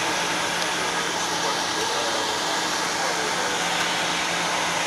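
Steady cockpit noise of a Bombardier Global 6000 business jet taxiing with its engines at idle: an even rushing hiss with a low steady hum underneath.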